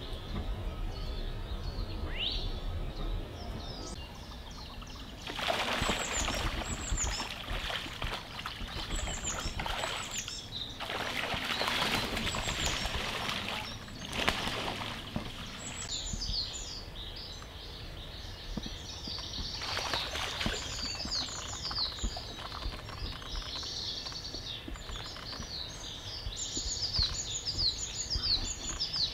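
Songbirds chirping and singing throughout, with more chirps near the end. Over them come three bursts of water splashing, about five seconds in, around eleven seconds and about twenty seconds in, as mandarin ducks scuffle on the water.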